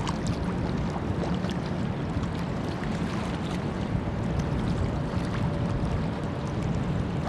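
Steady low rumble of a large cruise ship passing close by, mixed with wind on the microphone. A faint steady hum comes in about halfway through.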